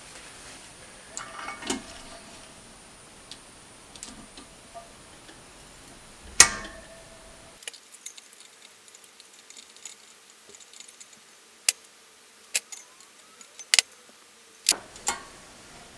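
Metallic clicks and taps of a valve spring compressor and valve keepers as springs are refitted to a BMW M54B30 aluminium cylinder head. One sharp click comes about six seconds in, and a quicker run of clicks follows near the end.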